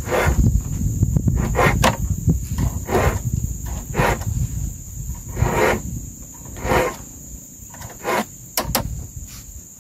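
Insects shrilling steadily at a high pitch, with about a dozen short rustling or swishing strikes at irregular intervals, a few close together near the end.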